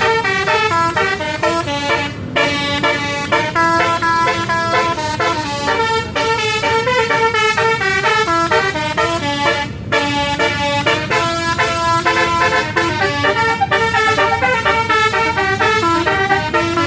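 Bus telolet horn, a Basuri multi-tone musical air horn, playing a fast tune of quickly changing notes. There are short breaks about two seconds in and near ten seconds.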